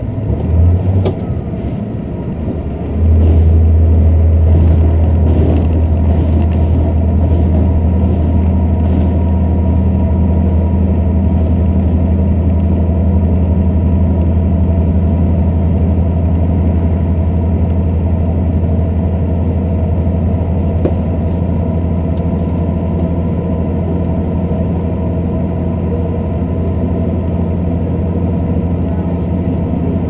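Diesel railcar engine of a limited express train, heard from inside the carriage. A steady low drone steps up sharply in loudness about three seconds in and then holds under power, over the rumble of the wheels on the rails.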